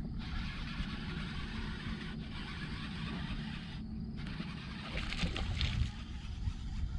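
Fishing reel being cranked as a hooked bass is reeled in, a steady whirring that stops briefly about four seconds in and then resumes, over a low steady rumble.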